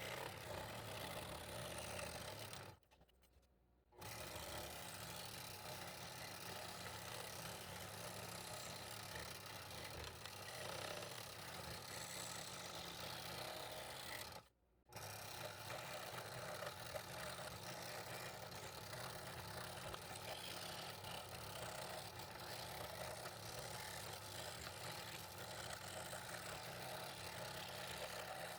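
Scroll saw running steadily while cutting fretwork in wood, a low motor hum under the noise of the blade. The sound cuts out twice: for about a second, three seconds in, and briefly near the middle.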